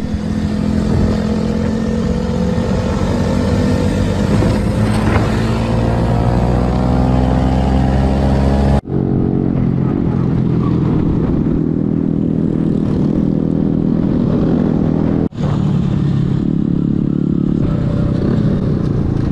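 Motorcycle engines running at riding speed, the pitch rising as the bike accelerates in the first stretch, broken by two abrupt cuts between clips.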